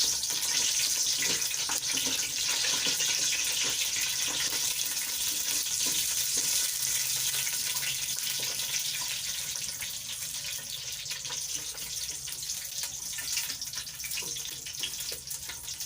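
Conditioner mixture being stirred in one direction, a steady watery swishing with scattered light ticks that eases off slightly in the second half.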